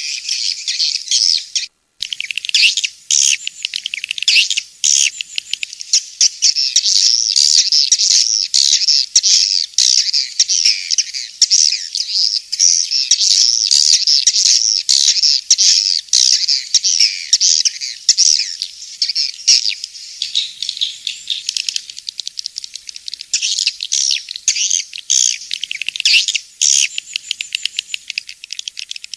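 Swiftlet call track used to lure swiftlets into nest houses: many swiftlets twittering in a dense, unbroken chatter of high chirps, with a brief gap about two seconds in.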